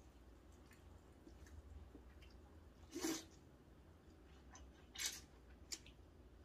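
Thin wheat noodles of cold janchi guksu (party noodles) slurped into the mouth in two short, loud bursts about three and five seconds in, with a smaller one just after, and faint chewing between.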